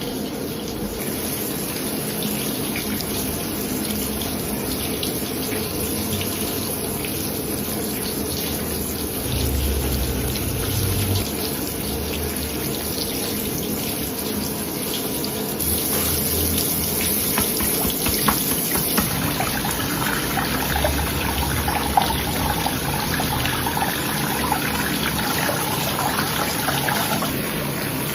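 Water running steadily from a tap into a sink, with a few short knocks in the second half.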